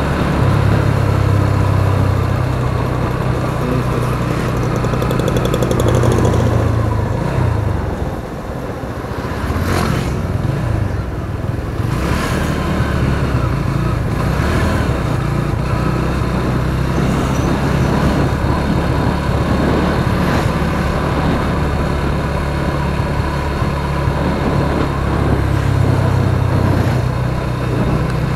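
Motorcycle engine running steadily under way, with road and wind noise; the engine note drops briefly about eight seconds in, then picks up again and holds steady.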